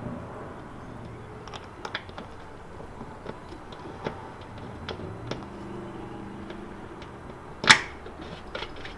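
Light clicks and taps of hand work fitting a motorcycle seat and a rubber grommet washer into place, with one sharp click about three-quarters of the way through.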